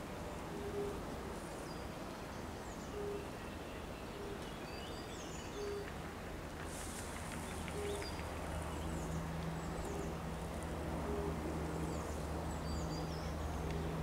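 European fire-bellied toads calling from the pond: short, soft hooting notes, one every couple of seconds. Birds sing high chirps over them, and a low steady drone grows in the background about two-thirds of the way through.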